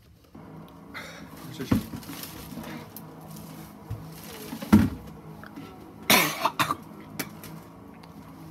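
A man hiccuping and coughing: a short sharp hiccup about two seconds in, a louder one near the middle, then a burst of coughing. The hiccups are brought on by the Carolina Reaper pepper he has just eaten.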